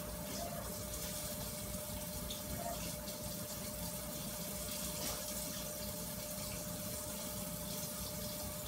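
Flour-dredged cube steaks sizzling steadily in a hot frying pan as they brown.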